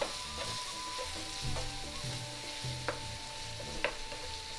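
Onions sizzling as they fry in a little oil in a pan, stirred with a spatula that taps against the pan a few times. They are at the stage of frying until the raw onion smell is gone.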